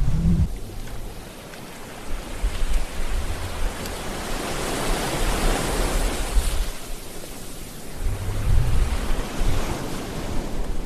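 Sea waves washing in, one wave swelling and breaking into a broad hiss about halfway through, with low rumbling near the start and again near the end.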